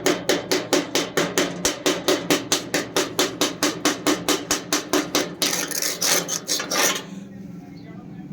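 A hammer striking metal in a rapid, even run of blows, about five a second. It changes to a short scraping or rasping sound about five and a half seconds in, which stops about seven seconds in.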